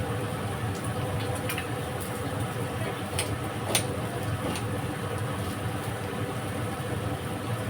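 A steady low mechanical hum, like a motor running, with a few light clicks.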